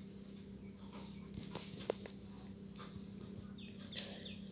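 Faint, short chirps of small birds that fall in pitch, over a steady low hum. A few small clicks from electronic component leads being handled, the sharpest about two seconds in.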